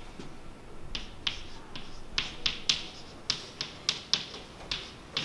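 Chalk on a chalkboard while a word is written: a quick, irregular series of about fifteen short, sharp taps and scrapes, roughly three a second.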